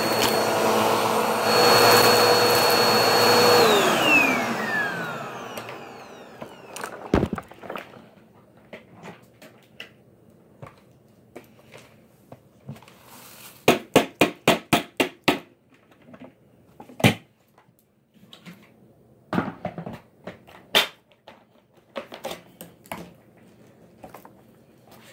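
Vacuum cleaner motor running steadily and then switched off, its whine falling in pitch as it spins down over a couple of seconds. A thump follows, then scattered clicks and knocks, including a quick run of about eight clicks.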